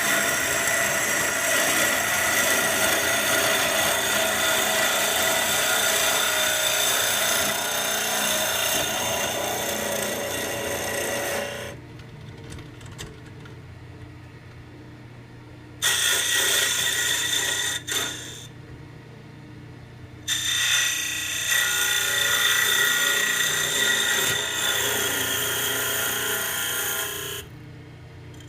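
Jet mini lathe spinning a cedar blank while a duplicator-guided cutter scrapes it to shape, a steady loud rasping cut over the motor's hum. The cutting breaks off a little before halfway, leaving only the motor's hum, then comes back twice, briefly and then for several seconds, before stopping again near the end.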